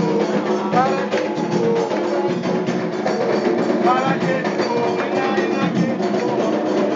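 Afro-Brazilian ritual music: steady, fast hand-drum and struck percussion rhythm with voices singing over it.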